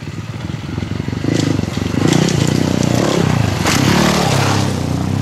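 Dirt bike engine running as the bike comes down a steep, rocky, rutted track towards the microphone, getting louder about two seconds in. A few sharp clatters sound over the engine.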